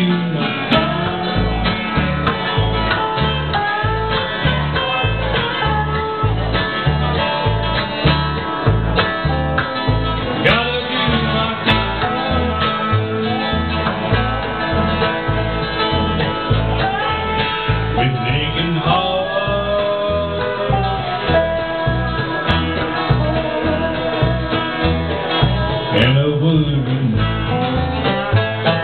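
Live acoustic string band playing: strummed acoustic guitar, mandolin and a plucked upright bass keeping a steady beat, with a man singing.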